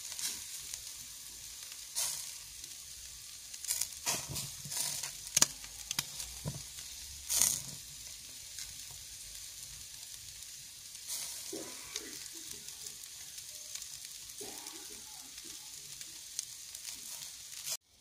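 Bacon-wrapped meat skewers sizzling in a wire grill basket over glowing charcoal: a steady high hiss with scattered sharp pops and crackles. It cuts off abruptly just before the end.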